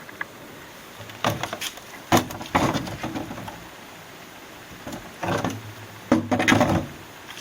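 Irregular clicks, knocks and rattles of plastic and metal parts being handled inside an oxygen concentrator during disassembly, in a few clusters with quieter gaps between.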